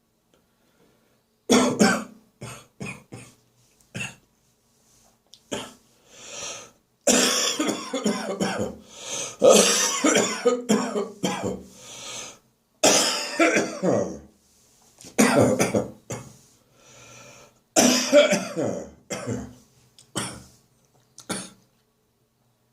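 A person coughing up catarrh in repeated fits of chesty, productive coughing and throat clearing. A few short quick coughs come about two seconds in, then longer harsh bouts with short pauses between them from about seven seconds on.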